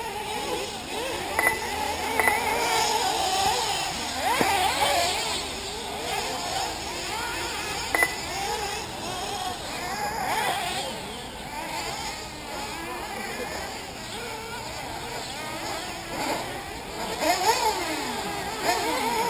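Several 1/8-scale nitro RC buggy engines racing around the track, their high whine rising and falling as they rev up and back off. A few short high beeps stand out about a second and a half in, about two seconds in and about eight seconds in.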